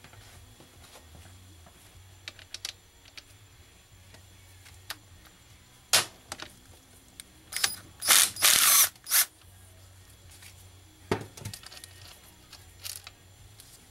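Hand ratchet wrench clicking on transmission bolts, with a quick run of ratcheting a little past halfway. Scattered sharp clicks and knocks of tools and metal parts come before and after it.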